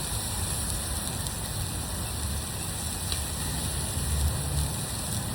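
Steady hiss of chicken sizzling on a Blackstone propane griddle, over a low, steady rumble.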